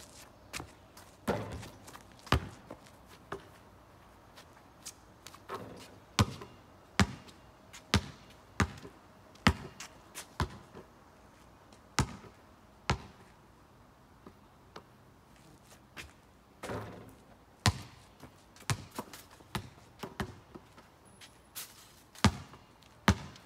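Basketball bouncing on pavement: irregular sharp bounces, sometimes about one a second, with short gaps between runs.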